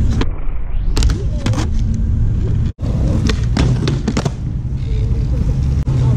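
Skateboard wheels rolling on rough asphalt with a steady low rumble, broken by sharp clacks and knocks of the board popping, striking a ledge and landing. The sound cuts out for a moment near the middle.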